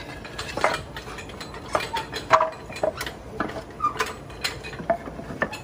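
Irregular knocks and clacks of wooden blocks and boards being set and shifted into a cribbing stack, about a dozen hits, some with a short ringing clink.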